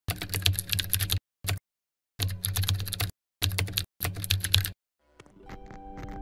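Keyboard typing sound effect: fast clicking in five runs with short silent gaps between them. Near the end, music with held tones fades in and grows louder.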